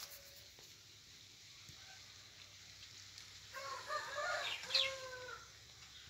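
A rooster crows once, about two seconds long, starting about three and a half seconds in and ending on a held note.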